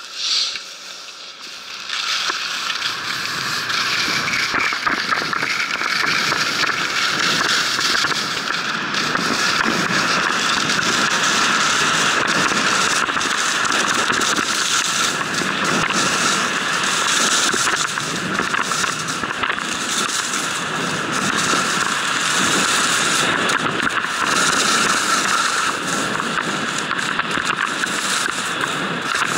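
Skis scraping and hissing over hard-packed groomed snow on a fast downhill run: a loud, continuous crackling scrape that swells up about two seconds in and then holds steady.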